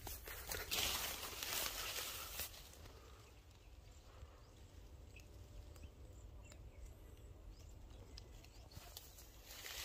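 Footsteps and rustling through dry leaves and grass, loudest in the first couple of seconds and again near the end, over a steady low rumble.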